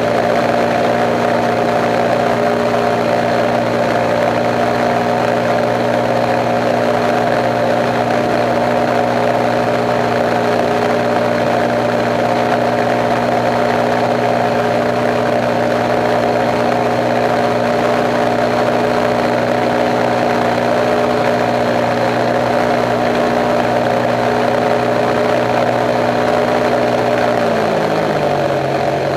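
Kolb Kolbra ultralight's engine and propeller droning steadily, heard from inside the cockpit. Near the end the pitch drops smoothly as the throttle is pulled back for the descent to land.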